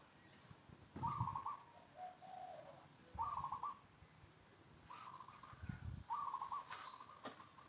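A bird calling: four short, pulsed calls, each about half a second long, repeated every one to two seconds.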